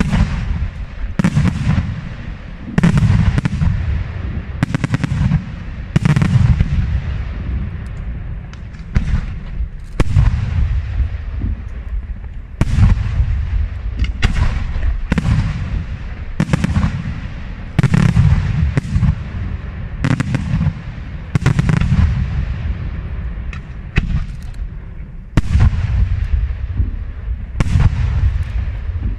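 Aerial fireworks shells bursting in quick succession, roughly one loud bang a second, each trailing off in a low rumble.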